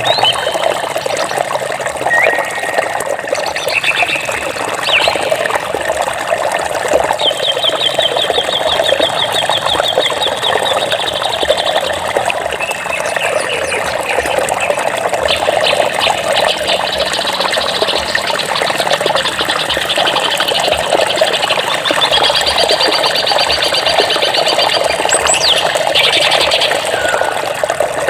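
Steady rush of flowing water with birds calling over it: scattered chirps and two long, rapid trills of repeated notes, one about a quarter of the way in and another near the end.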